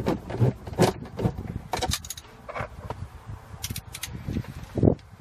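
Irregular clicks, taps and scrapes of a driver and screws being worked into the plastic dash trim around a newly installed car stereo, with a sharper knock shortly before the end.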